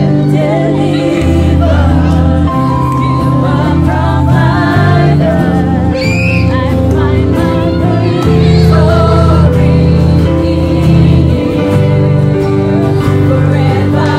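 Gospel music: a choir of voices singing over a loud, sustained bass line whose notes change every second or two.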